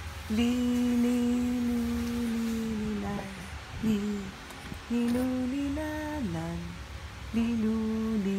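A woman humming a simple lullaby-like tune in long held notes, the pitch stepping up and down in short repeated phrases.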